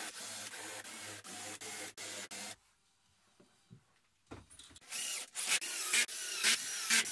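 A cordless drill with a countersink bit runs in short trigger bursts, countersinking pre-drilled 3 mm screw holes in a wooden back panel. After a pause of nearly two seconds and a knock, the drill runs again in quick pulses whose pitch wavers up and down.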